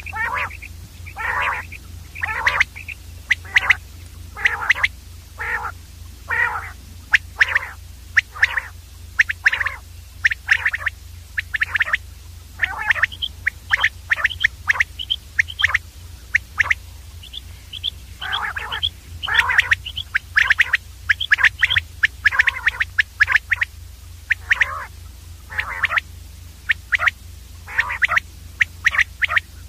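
Common quail calling over and over: short, harsh calls one or two a second, with a short lull around the middle, over a steady low hum.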